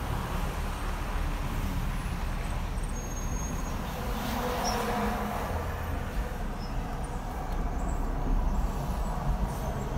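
Car engine and road rumble heard from inside the cabin as the car creeps out of a drive-thru, with street traffic outside; a vehicle noise swells briefly about four to five seconds in.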